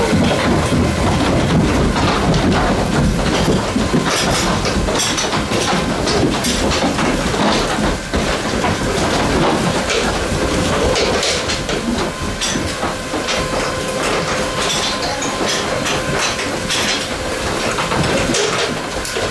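Goat milking parlour machinery running: a steady machine hum under continuous rattling and clattering of metal.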